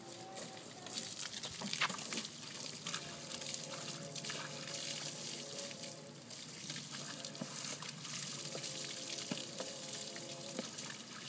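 Garden hose spraying a stream of water onto wet concrete, a steady splashing hiss with a few light knocks.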